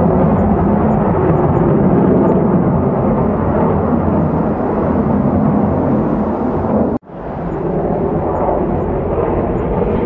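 Storm ambience: a steady, low roar of strong wind. It cuts out abruptly about seven seconds in and fades back up within a second.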